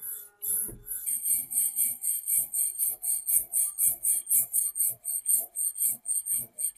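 Steel wire hand brush scrubbing rust off a rusty antique iron padlock in back-and-forth scraping strokes. The strokes quicken about a second in, to about four a second.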